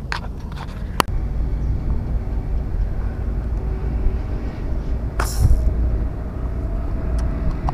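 A fishing slingshot loosed at the pond: a short sharp snap-and-splash burst about five seconds in, over a steady low outdoor rumble, with a single click about a second in.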